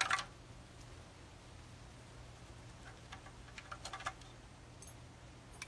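Faint, scattered light clicks and taps, bunched about three to four seconds in, over a low steady hum.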